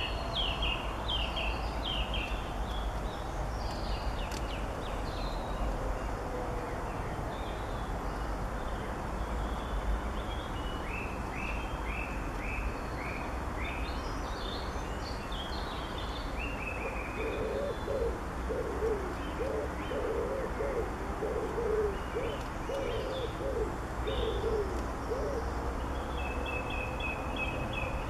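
Garden birds calling: short high chirps in quick runs throughout. In the second half a run of low calls repeats one or two times a second for several seconds. A steady background hiss lies underneath.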